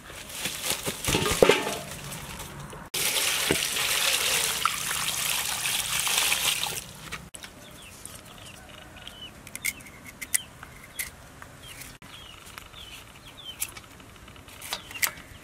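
Water splashing and sloshing in a steel basin as lemongrass stalks are washed by hand, loudest for about the first seven seconds. After that there are softer drips and scattered small clicks, with birds chirping in the background.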